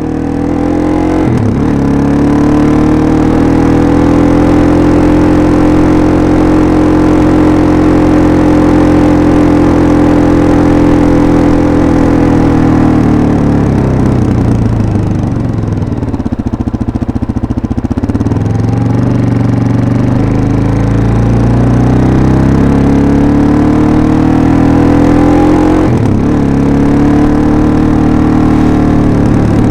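Suzuki DR-Z400SM's single-cylinder four-stroke engine under way. It holds a steady note, falls in pitch as the bike slows about midway, then climbs again, with a short drop in pitch near the end.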